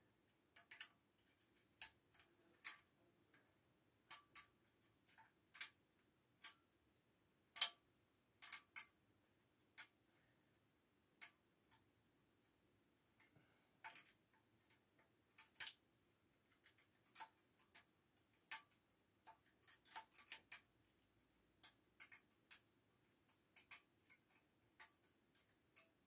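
Irregular small sharp clicks and taps, some in quick little clusters, from a small tool prying at the plastic carbon brush holder of a Hoover Turbopower vacuum cleaner motor while working a carbon brush out. The brush won't come free, and he thinks it might be jammed.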